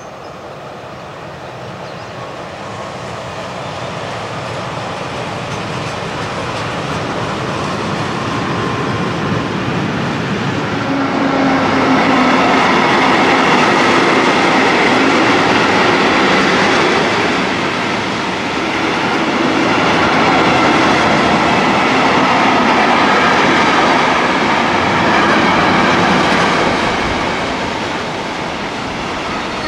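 Electric freight train, a BB 26000 locomotive with a long rake of container wagons, running past close by with wheels clattering on the rails and wagons rumbling. The sound builds over the first ten seconds or so, then stays loud as the wagons roll by.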